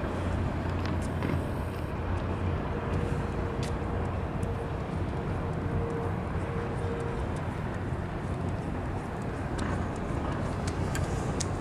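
Low, steady engine drone of a motor cruiser passing slowly, with a faint held whine for a few seconds in the middle.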